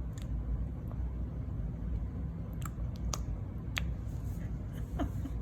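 A baby's mouth sounds: a few short wet tongue clicks and lip smacks, as if eating, spaced about half a second apart, over a steady low hum. A faint little vocal sound near the end.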